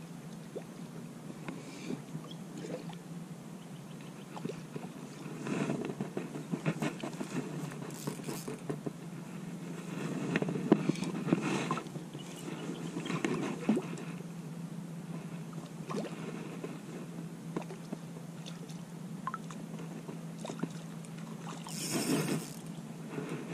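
Close handling noise: irregular rustling and scraping as the spinning rod and reel are handled and tussock grass brushes near the microphone, with a short louder brush near the end, over a steady low hum.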